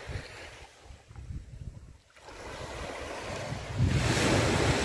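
Small waves breaking and washing up a sandy beach at the water's edge, with wind buffeting the microphone. A wave breaks and rushes up the sand close by about four seconds in, the loudest moment.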